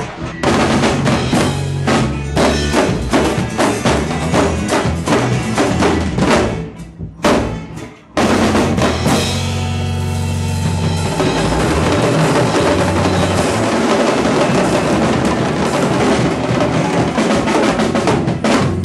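Percussion group playing a drum rhythm with bass drum and snare. It thins out and nearly stops about seven seconds in, then comes back in suddenly, fuller and denser.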